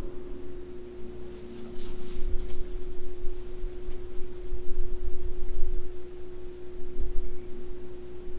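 A steady single-pitched tone, like an electrical hum, holding one pitch without a break, over a faint low rumble; a brief soft rustle about two seconds in.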